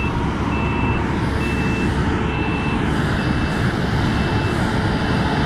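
A vehicle's backup alarm beeping in a steady single tone about once a second, fading out near the end, over the steady low rumble of idling engines.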